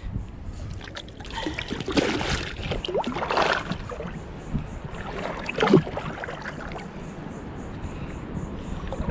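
Water splashing and sloshing as a caught snook is held in the shallows and revived by hand, with a sharper splash a little past the middle.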